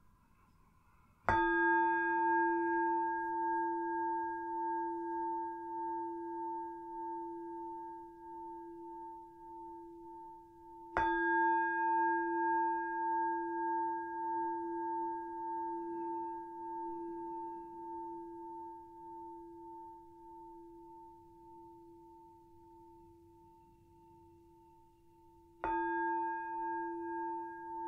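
Meditation bell struck three times, about ten and then fifteen seconds apart, each stroke ringing on in a long, slowly fading tone with a slight waver. These are the three sounds of the bell that open a guided meditation.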